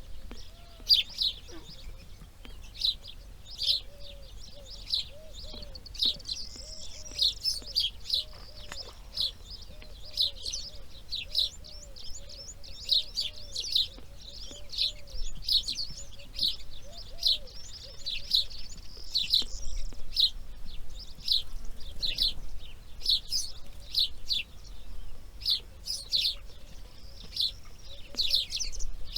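Birds chirping: a dense run of short high chirps, several a second, with a couple of longer trills. A soft, low, repeated call runs underneath.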